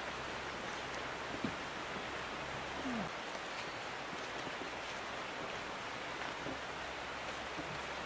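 Steady outdoor background hiss with a couple of faint clicks; a low hum underneath cuts off about three seconds in.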